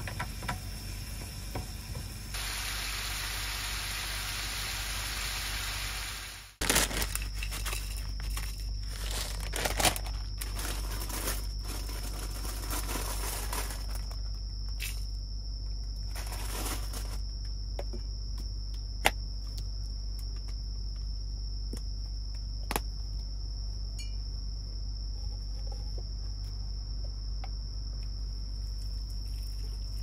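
Udon and meat sizzling in a frying pan on a cassette gas stove as chopsticks stir it. After an abrupt cut, a plastic packet of instant nameko miso soup crinkles and is torn open, with scattered sharp clicks, over a steady high insect trill like a cricket's and a low hum.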